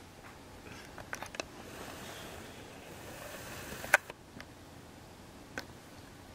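Quiet room tone with faint rustling and a few light clicks, the sharpest one about four seconds in.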